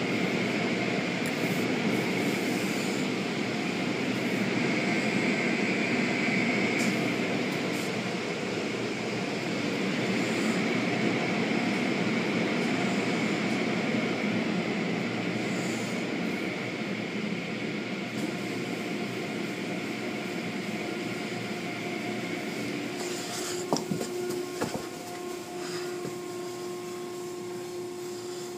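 Automatic car wash machinery running: a steady rush of water spray and spinning brushes over a motor hum. About twenty seconds in it eases a little, with a few clicks and knocks, and a steady hum carries on.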